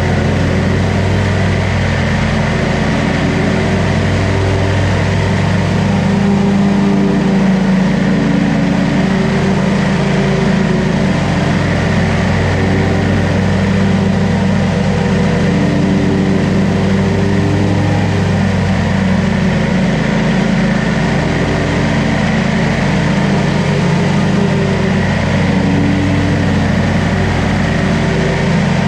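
Zero-turn mower's Kohler engine running steadily while mowing grass, its note shifting slightly a few times as it turns and takes load.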